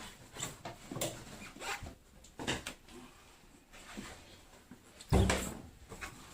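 Scattered clicks and knocks of parts being handled during an appliance repair, with one louder, low thump about five seconds in.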